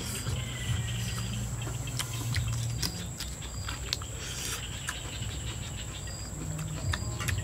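Close-up chewing and lip-smacking of a person eating, heard as irregular wet clicks, over a steady high insect drone.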